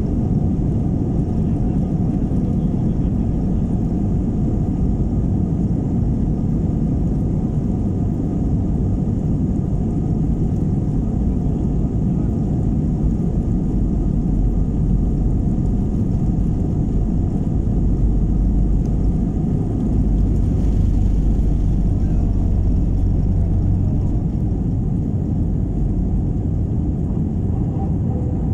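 Jet airliner's engines at takeoff power heard from inside the cabin, a steady loud rush with a deep rumble from the takeoff roll and climb. The low rumble grows stronger about two-thirds of the way through, then eases.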